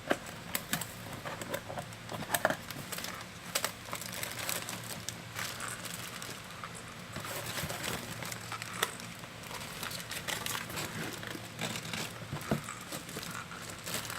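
Plastic fishing-lure packaging being handled and opened: irregular crinkling rustles with scattered small clicks and taps.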